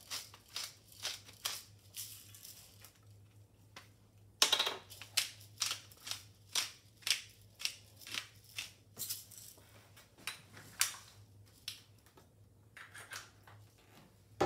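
Salt and pepper mills being twisted over a pot, grinding with rhythmic crunching clicks about two to three a second. There is a short pause about three seconds in, and the grinding stops about eleven seconds in.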